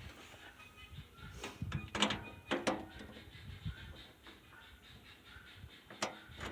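Wheelbarrow parts knocking and clanking as a piece is slid into place over its bolts during assembly. There is a cluster of sharp knocks a couple of seconds in, and another knock near the end.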